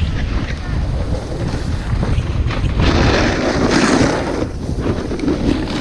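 Wind buffeting the microphone over the hiss and scrape of a snowboard sliding on groomed snow, with a louder scraping swell from about three to four and a half seconds in.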